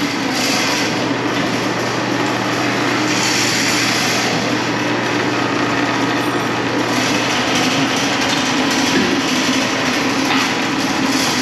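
Steady machine noise: a continuous mechanical drone with a low hum and hiss, even in level throughout.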